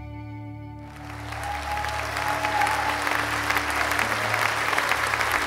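Audience applause breaking out about a second in and swelling to a steady clapping, over the last held chord of soft keyboard music that fades away.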